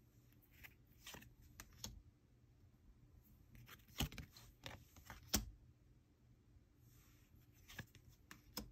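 Trading cards being handled and flipped through: faint sliding of card against card with a scatter of sharp little clicks and taps, the loudest about four and five and a half seconds in.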